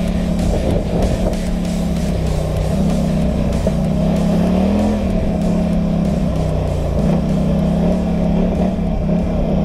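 Polaris Scrambler 1000XP ATV's twin-cylinder engine running under way at a fairly steady pitch, with a brief rise in revs about halfway through, over wind and track noise.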